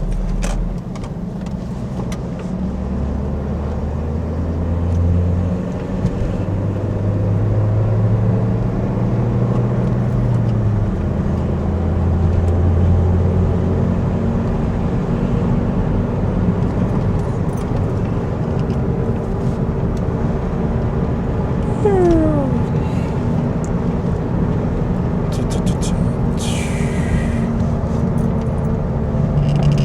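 Car engine and road noise heard from inside a moving car. The engine note steps up and down in pitch several times in the first dozen seconds as the car accelerates and shifts, then runs steadily. A short falling tone comes about 22 seconds in and a brief hiss at around 27 seconds.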